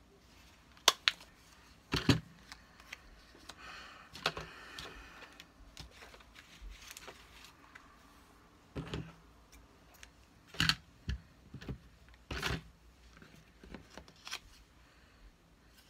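Handheld hole punch snapping shut through a paper tag, with sharp clicks about a second and two seconds in. After that, paper rustling and a few more sharp knocks and clicks as tools are put down and twine is handled on the cutting mat.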